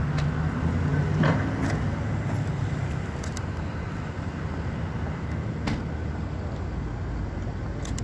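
Hydraulic excavator's diesel engine running steadily, a little louder in the first second or so, with a few short sharp knocks scattered through.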